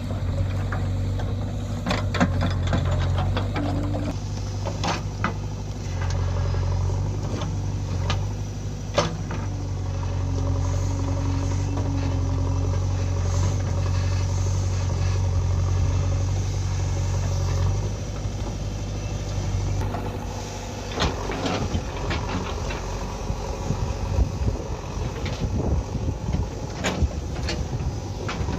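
JCB 3DX Eco backhoe loader's diesel engine running steadily while it works, with scattered sharp knocks and clanks. The engine note drops away about two-thirds of the way through.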